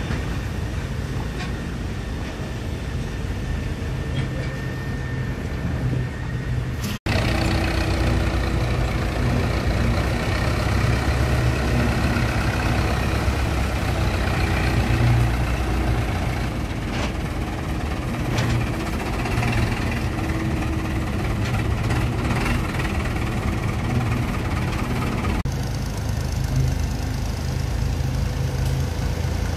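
Farm tractor diesel engines running heavily while hauling sugarcane-loaded trolleys. The sound cuts off abruptly about seven seconds in and resumes louder, then shifts again near the end as it jumps between tractors.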